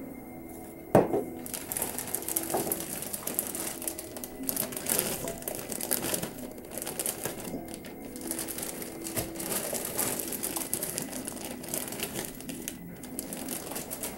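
Frozen tater tots poured from a plastic bag into a metal mixing bowl: a sharp knock about a second in, then a dense run of light clicks and rattles as the tots drop in, with the bag crinkling.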